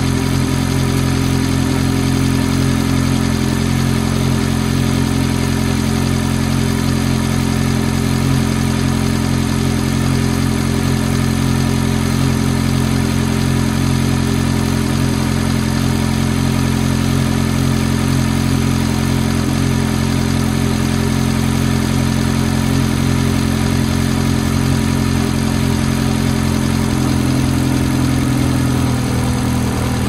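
Ferrari F430's 4.3-litre V8 idling steadily after a cold start, its idle pitch dropping slightly near the end.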